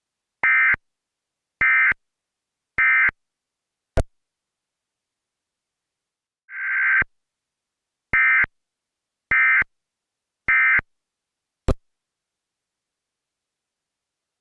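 EAS end-of-message data tones: three short bursts of warbling digital buzz about a second apart, then a click. A burst swells in, three more identical short bursts follow, and there is another click near the end.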